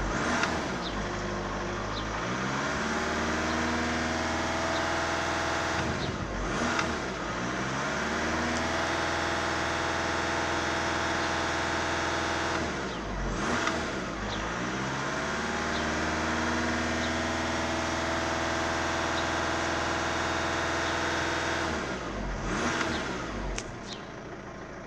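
Car engine free-revving in park: the revs climb and are held at about 2,500 rpm three times, dropping briefly between, then settle back to idle near the end.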